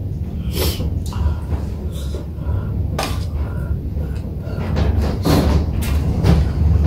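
Metal chopsticks and spoons clicking and scraping irregularly against a stainless steel serving bowl and ceramic bowls, with eating sounds, over a steady low hum.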